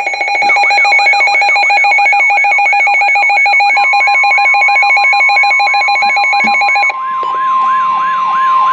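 Weather radio alert tones for a severe thunderstorm warning: a harsh, rapidly pulsing electronic buzz and a siren-like tone that sweeps downward about three times a second. A steady high tone joins about four seconds in, and the buzzing stops about seven seconds in, leaving the sweeping tone and the steady tone.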